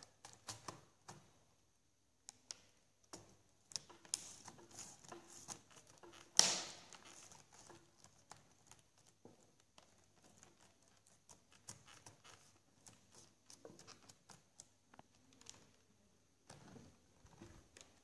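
Scattered plastic clicks and taps of a laptop keyboard being fitted into an Acer Aspire 5749 and pressed down into place, with one louder clack about six and a half seconds in.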